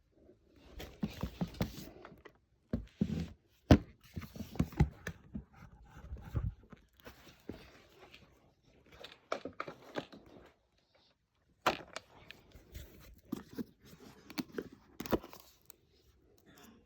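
Handling of packaging and objects at close range: irregular rustling and scraping broken by sharp clicks and knocks, with a brief lull about eleven seconds in.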